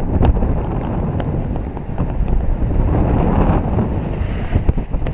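Rushing airflow buffeting a camera microphone on a paraglider in flight: a loud, gusty low rumble that swells briefly about three seconds in, with scattered light clicks.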